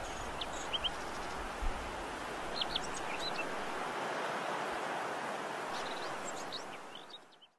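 Outdoor ambience: a steady rushing hiss with scattered short bird chirps in a few clusters, fading out to silence near the end.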